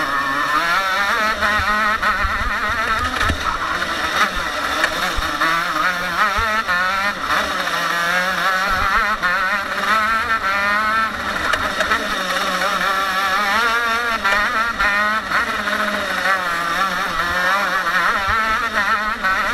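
TM KZ10 125cc two-stroke single-cylinder shifter kart engine at racing speed, its pitch rising and falling again and again as the kart accelerates and slows through tight corners. Wind rumble on the onboard microphone runs underneath.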